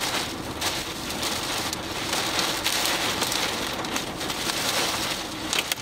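Heavy rain hitting a moving car's windshield and body, heard from inside the car as a steady, dense hiss with scattered sharp ticks of drops.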